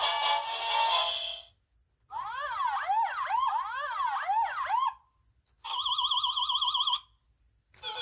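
Electronic sound effects from a children's button sound book: a snatch of tinny music that stops about a second and a half in, then a run of quick up-and-down swooping chirps, then after a short gap a fast warbling siren-like tone lasting just over a second.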